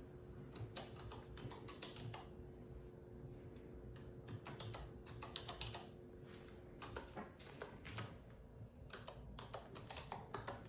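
Typing on a computer keyboard: several quick runs of keystrokes with short pauses between them, as a search is typed into a web browser.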